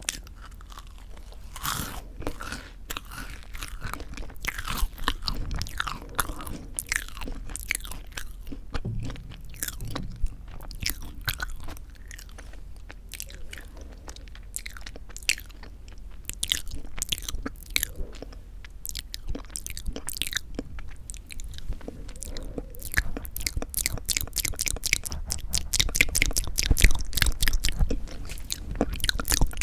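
Close-miked chewing and crunching of crisp toasted bread with whipped cream: a steady run of sharp crackling crunches, coming thicker and louder near the end.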